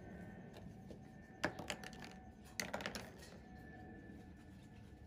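Faint clicking taps in two short clusters, about a second and a half in and again around three seconds in.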